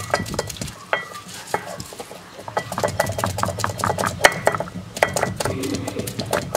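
Stone roller of a traditional arakallu grinding stone knocking and rolling on the stone slab, crushing mango ginger, shallots and chillies: an irregular run of sharp stone-on-stone knocks and gritty scrapes.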